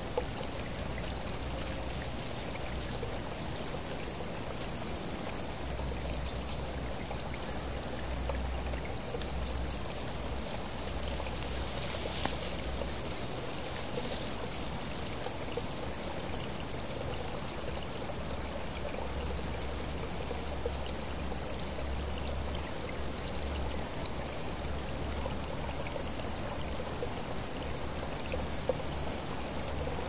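Small forest stream running and trickling over stones, a steady watery rush. A few short high chirps sound over it, about three times.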